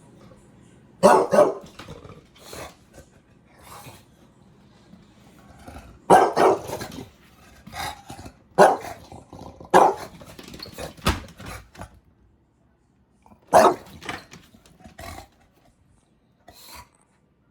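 Bulldog barking in irregular loud bursts, some with growling, with pauses between them. The sound dies down near the end.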